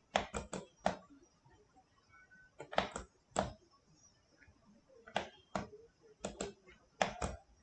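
Computer mouse clicking in small clusters of two to four clicks with short pauses between, as parts are picked and the view is turned in CAD software.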